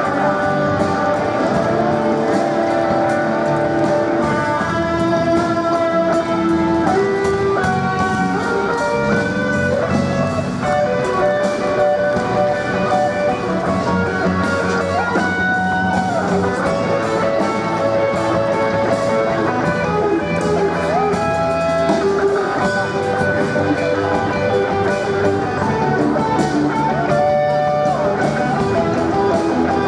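A live band playing a song, led by electric guitar, with held notes and occasional slides over a steady low backing.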